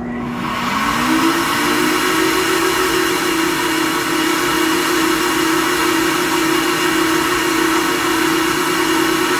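SuperFlow flowbench starting up and drawing air through a cylinder head port at 0.400-inch valve lift. Its motors spin up with a rising whine over the first two seconds, then run steadily under a loud rush of air as the test pressure builds to about 27 inches of water.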